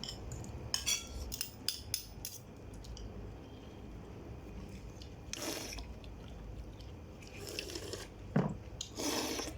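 Eating sounds: a quick run of clicks from a utensil against a dish in the first couple of seconds, then a few short, wet mouth sounds of eating later on.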